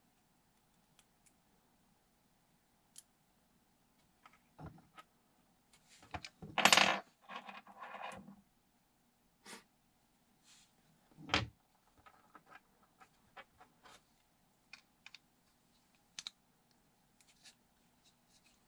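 Small plastic and metal parts of a G19-style airsoft pistol being handled and fitted together on a wooden table: scattered light clicks. A louder rattling clatter of several quick knocks comes about six seconds in and lasts about two seconds, and there is another sharp knock about eleven seconds in.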